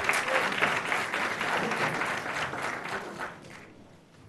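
Audience applauding, the clapping loud at first and then fading out over the last second or so.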